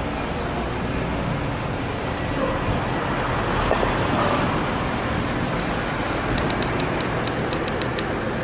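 Street traffic: cars and buses running past in a steady wash of engine and tyre noise. Near the end comes a quick run of about ten sharp ticks.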